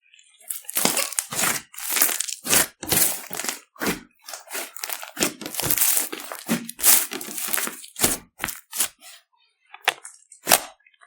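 Glossy slime being squished and stretched by hand, giving a rapid, irregular series of sharp crackling pops and clicks that thins out near the end.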